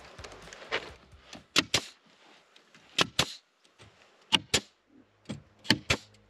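Hammer blows on the wooden pig house, coming as quick double knocks about every second and a half, five times.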